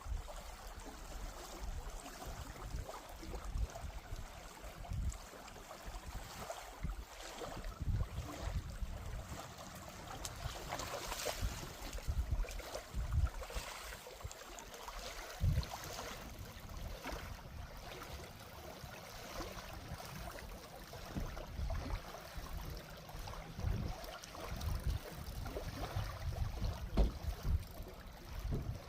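Wind buffeting the microphone in irregular gusts, a low rumbling that comes and goes over a steady outdoor hiss, with a few faint clicks.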